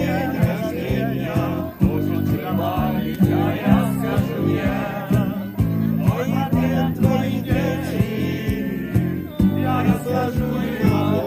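A rock song with singing over guitar, bass and drums, keeping a steady beat.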